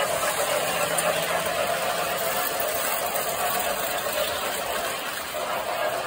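Toy electric trains, a 1920s tinplate freight and a semi-scale passenger train, running on metal track: a steady rolling rumble and clatter of wheels and motors, easing a little near the end.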